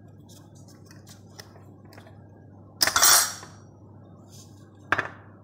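Kitchen utensils being handled: a glass jar, its lid and a metal spoon knocking and clinking on a counter. There is a loud clatter of about half a second around three seconds in and a sharp clink near the end, over a steady low hum.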